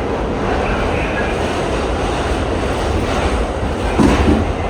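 R68 subway train running along the track, a steady loud rumble of wheels and motors, with a brief louder jolt about four seconds in.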